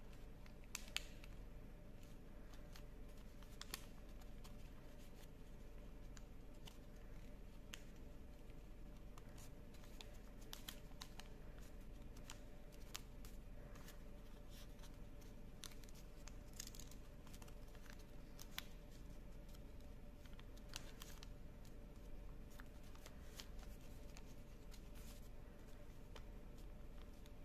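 Origami paper crinkling and rustling as hands fold and pinch it into shape: faint, irregular sharp crinkles scattered throughout, over a low steady hum.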